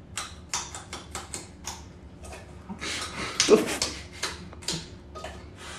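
Raw carrot being bitten and chewed: irregular crisp crunches, with one louder crunch about halfway through.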